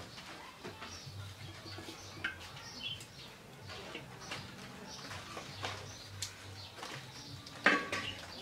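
Hands handling ash-coated stinging catfish on a woven bamboo mat, making scattered short wet slaps and scrapes. Birds chirp and call in the background, and a louder short sound comes near the end.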